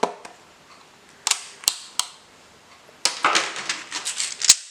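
Plastic keyboard parts being handled: a few sharp clicks in the first two seconds, then a dense clatter of plastic clicks and rattles from about three seconds in.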